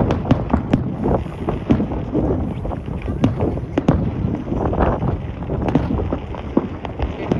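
Aerial fireworks shells bursting, a string of repeated bangs and crackles, over a steady low rumble of wind on the microphone.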